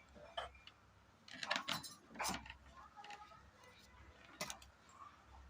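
A few light metallic clicks and taps from small tools and cable parts being handled on a workbench: one about half a second in, a cluster of several around two seconds in, and one more near the end.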